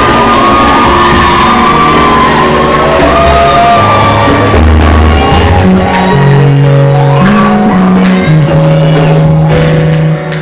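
Loud worship music with held bass notes that change every second or so, and a crowd of voices shouting and singing along over it.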